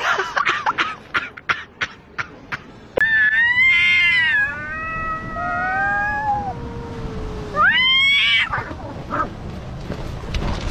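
Cats yowling at each other in a standoff: long, wavering caterwauls that slide down in pitch and overlap, then a sharp rising yowl about eight seconds in. Before the yowling, a quick run of short clicks and knocks.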